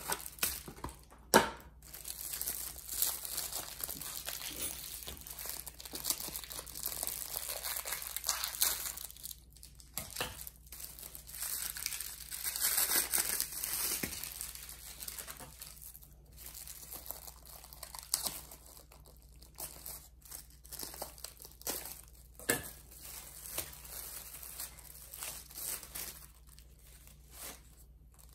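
Rustling and crinkling of a filo pastry packet being opened, with the roll of thin pastry sheets unrolled and spread out by hand. There is a sharp click about a second in, and the crinkling comes and goes in bouts.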